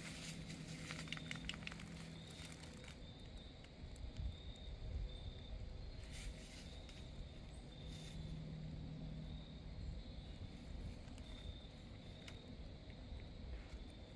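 Faint outdoor ambience: a steady low rumble with a low hum in stretches, and scattered light rustles and clicks.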